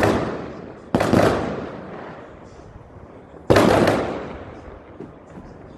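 Distant fireworks booming: a sharp blast about a second in and another about three and a half seconds in, each trailing off in a long rolling echo, with the fading tail of an earlier blast at the start.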